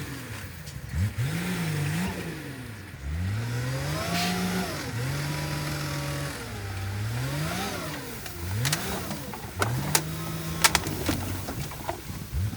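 An engine revving up and down over and over, its pitch rising, holding briefly, then dropping, with a few sharp knocks near the end.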